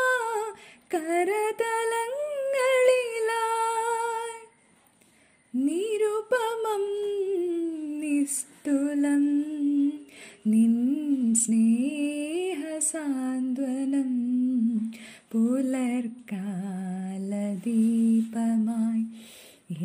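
A woman singing a slow devotional melody unaccompanied, with long held notes and a short break about four and a half seconds in.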